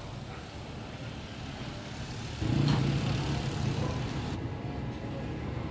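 Low engine rumble of street traffic, growing louder about two and a half seconds in, with a single click just after.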